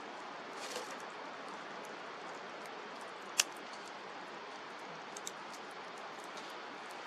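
Wood campfire burning with a steady hiss, dotted with small crackles and one sharp, loud pop about three and a half seconds in.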